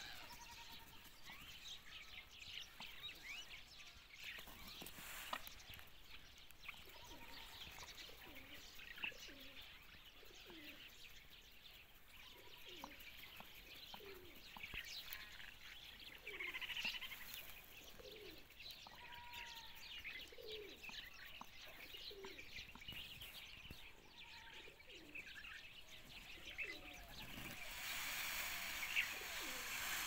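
Pigeons cooing, a run of short low calls about once a second, with small birds chirping higher up.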